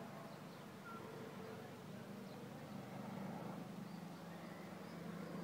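Faint outdoor background: a steady low hum, like distant traffic, with a few short, faint high bird chirps scattered through it.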